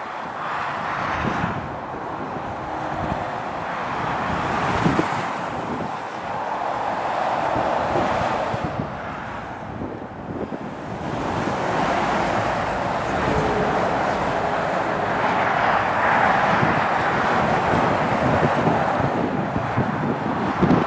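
Motorway traffic going by at speed: lorries and cars passing one after another, their tyre and engine noise swelling and fading as each goes past, with wind buffeting the microphone.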